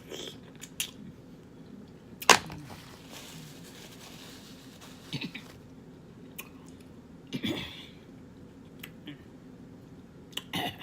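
Eating sounds from a seafood boil: scattered clicks and short noisy bursts, with one sharp, loud click about two seconds in.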